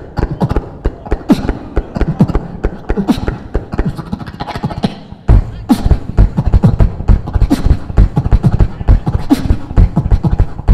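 Solo beatboxing into a handheld microphone: a fast, dense run of vocal kick, snare and hi-hat sounds with low bass sweeps. The pattern breaks briefly about five seconds in, then drops back in louder.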